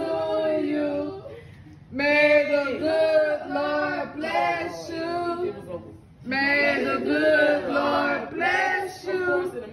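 A group of men and women singing together in long held phrases, breaking off briefly about a second in and again about six seconds in.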